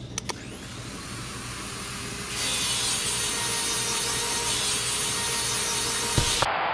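Portable air-powered angle grinder clicked on and spinning up with a rising whine, then grinding a metal bar with a loud steady hiss for about four seconds, cutting off abruptly near the end.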